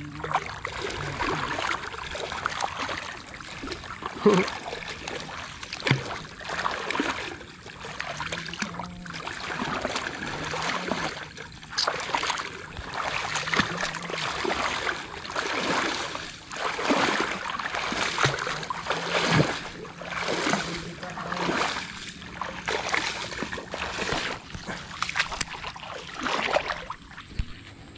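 Repeated splashing in shallow lake water from a hooked snakehead fish thrashing at the surface and an angler wading after it.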